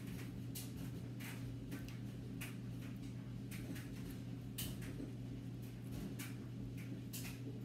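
Slime being squished and mixed by hand, making irregular small clicks and pops about once or twice a second.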